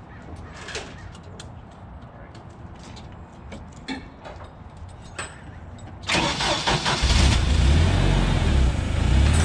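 Large forklift's engine cranked by its starter and catching about six seconds in, then running with a steady low rumble. Faint clicks and taps before it.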